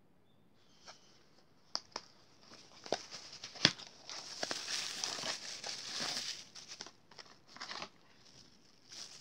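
Unboxing handling: a few sharp clicks as the packaging box is opened, the loudest a little before 4 s, then a plastic bag crinkling in bursts as the speaker wrapped in it is handled.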